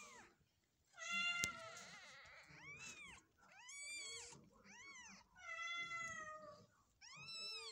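Very young kittens mewing: about six high, arching mews in a row, one longer than the rest past the middle. A sharp click sounds about a second and a half in.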